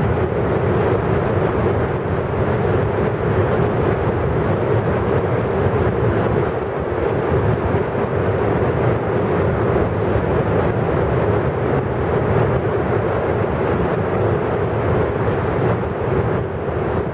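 Ermenek Dam spillway discharge: high-pressure jets of water shoot from the tunnel outlets and collide in the gorge to break their energy. The result is a loud, steady rushing noise.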